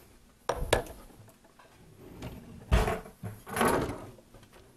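Kitchen items being handled and set down: two sharp knocks about half a second in, a heavier thump near the middle, then a short scrape.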